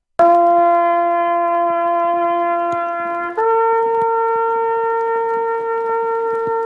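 Solo trumpet playing a ceremonial call: one long held note, then a higher note held for about four seconds.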